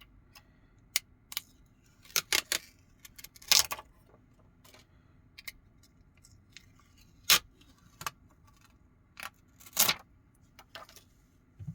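Irregular sharp clicks, taps and short scrapes of small tools and phone parts being handled as a replacement foldable-phone screen is taken apart, a few louder clicks among them.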